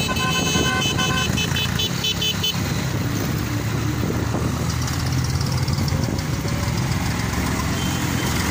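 Vehicle horns beep in quick, even bursts for the first two or three seconds, over the steady running of tractor and motorcycle engines. After that only the engines are heard.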